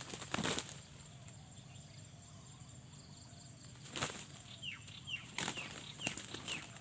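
Junglefowl wings flapping in short bursts, with rustling, once just after the start and again repeatedly over the last three seconds.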